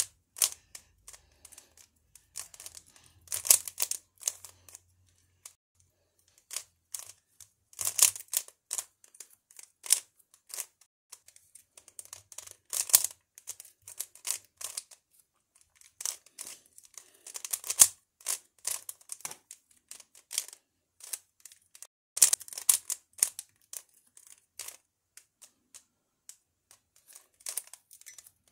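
A 3x3 twisty puzzle cube with ring-patterned faces being turned by hand during a solve: its plastic layers click and scrape in quick bursts of turns, with short pauses between them.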